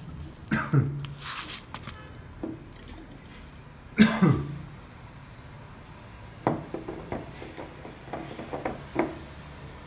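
Glass bottle being swirled and set against a countertop, giving several light knocks in the second half, with a single loud cough about four seconds in.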